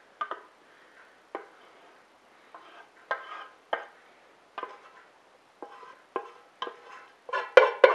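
A utensil knocking and scraping against a cooking pot as the last of the cooked pasta is scooped out into a casserole pan. About a dozen short, ringing knocks come at irregular intervals, faster and louder near the end.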